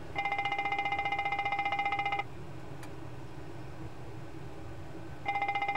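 Boeing 747 cockpit fire warning bell ringing rapidly during a test of the auxiliary power unit's fire detection and extinguishing system. The bell sounds for about two seconds at the start, stops, then starts again near the end.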